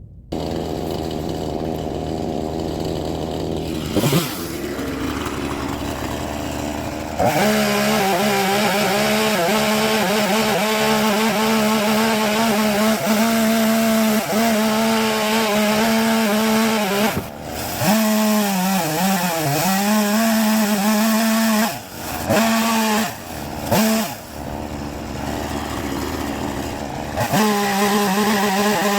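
Chainsaw running at a lower speed, then revved to full throttle about seven seconds in. Several times in the second half its pitch sags and recovers as the chain bites into the peach wood. It drops back for a few seconds and revs up again near the end.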